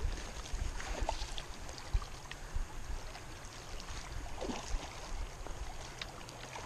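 River water running fast past a stony bank, with an uneven low rumble and scattered small clicks and splashes, one splash about four and a half seconds in.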